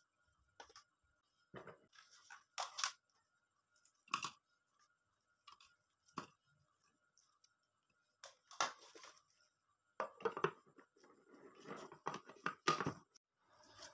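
Crisp pieces of fried semolina flatbread clattering and crunching in a plastic food chopper bowl as they are loaded and ground: irregular sharp crackles, coming thicker in the last few seconds.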